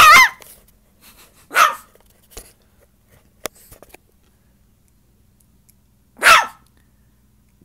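Tiny poodle barking: three short, high-pitched barks, the first two about a second and a half apart and the third about six seconds in.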